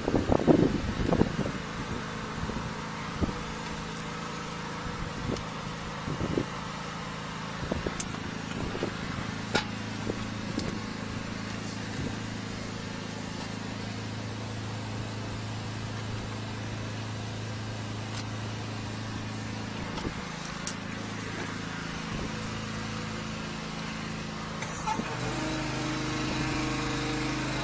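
Engine of a high-pressure drain-jetting machine running steadily, with scattered knocks and clatters as the jetting hose is handled and fed into a storm drain.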